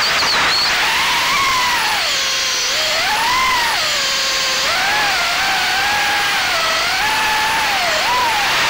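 Brushless motors and propellers of an Acrobrat FPV quadcopter, heard from its onboard camera, whining with a pitch that rises and falls repeatedly as the throttle changes.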